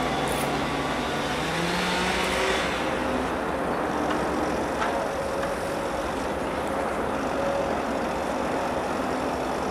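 NSB Class 73b electric multiple unit pulling away over snow-covered track: a steady rushing rumble, with a faint electric whine that rises in pitch about two seconds in.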